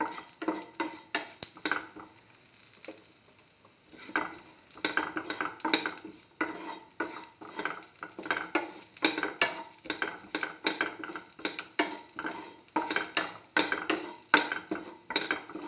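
A spatula scraping and knocking against a pan as shallots, garlic and ginger are stir-fried in a little oil, in quick repeated strokes with a short pause about two seconds in.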